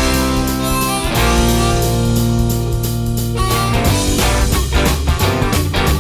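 Rock music with guitar and drums: held chords at first, then the drumming grows busier about four seconds in.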